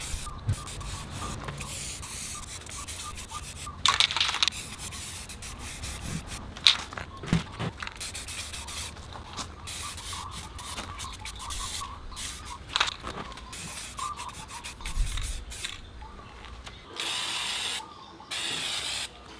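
Aerosol spray can in use: scattered sharp clicks and knocks, then two hissing spray bursts of about a second each near the end.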